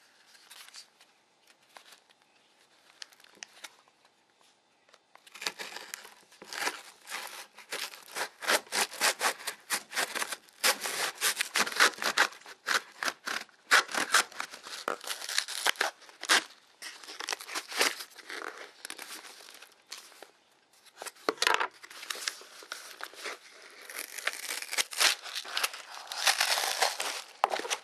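Small cardboard shipping box being cut and torn open by hand: rough scraping, ripping and crinkling of cardboard and paper in quick uneven runs. It starts about five seconds in and pauses briefly around twenty seconds.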